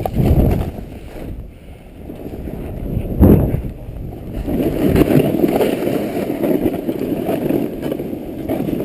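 Snowboard sliding and carving through powder snow, a low rushing hiss that swells and eases with the turns, with wind on the microphone. A sharp thud about three seconds in is the loudest moment.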